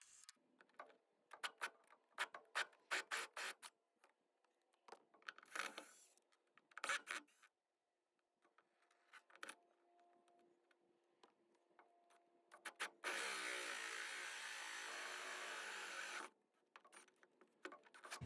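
Workshop handling sounds: scattered clicks and knocks of parts and tools being worked, then a steady noisy whir lasting about three seconds, which stops abruptly.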